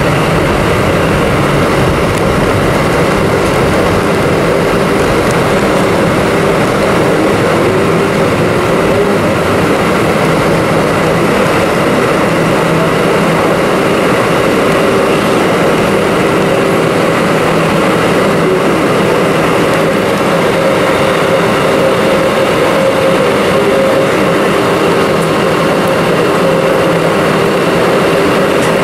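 Airbus A320-200's IAE V2500 turbofan engines running at taxi power, heard inside the cabin: a steady drone with a few steady humming tones that holds level while the aircraft taxis.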